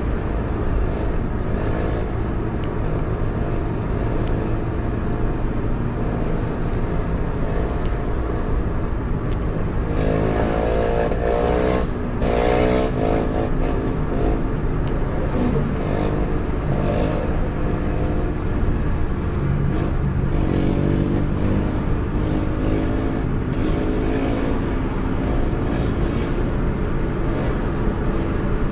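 A car's engine and tyre noise heard from inside its cabin while cruising at highway speed, a steady rumble with an engine tone that climbs as the car accelerates, most clearly about ten seconds in.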